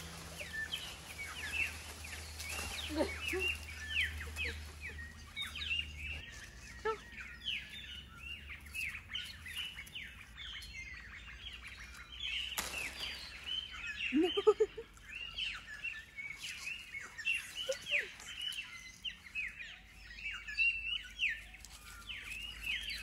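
Many wild birds chirping and calling at once, a dense run of short, quick high chirps. A brief lower animal call stands out about halfway through.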